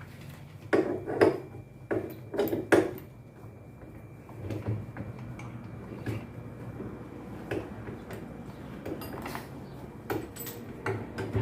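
Tools and washing-machine parts knocking and clinking as the machine is taken apart by hand: a cluster of about five sharp knocks in the first three seconds, then scattered lighter clicks.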